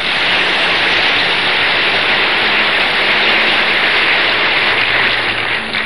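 A loud, steady rushing noise with no pitch, starting abruptly and dropping away near the end, over a faint low hum.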